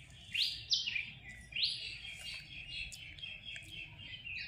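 Bird chirping: a few sharp notes that slide down in pitch, the loudest about half a second in and again about a second and a half in, followed by a run of quicker, softer chirps.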